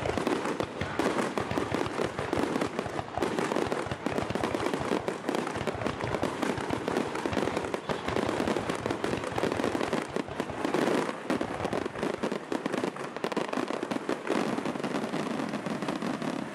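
Starmine fireworks barrage: a dense, unbroken run of launches, bangs and crackling bursts overlapping one another.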